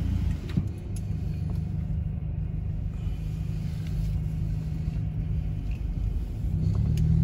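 Low, steady rumble of a 2012 Mazda 3 rolling slowly, heard from inside the cabin: engine and tyre noise, growing a little louder near the end.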